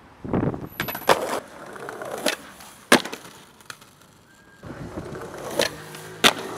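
Skateboard wheels rolling on stone paving, broken by sharp clacks of the board popping and slapping down; the loudest come about three seconds in and near the end.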